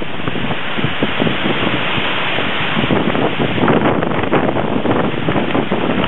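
Violent thunderstorm wind gusting hard through trees, with heavy rain, as a loud, unbroken rushing roar full of short irregular surges. The gusts buffet the microphone.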